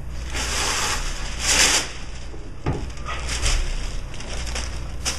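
A translucent sheet of kitchen wrap pulled from its box and spread over a table, rustling and crinkling. The loudest rustle comes about a second and a half in, with softer crinkles later.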